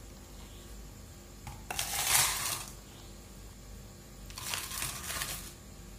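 Ice cubes scooped with a plastic scoop and tipped into a plastic cup of chocolate tea: two rattling bursts of ice, about a second and a half in and again about four and a half seconds in.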